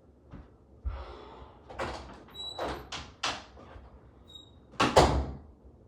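Action-figure packaging handled: a series of short scrapes and knocks, about five in all, the loudest about five seconds in.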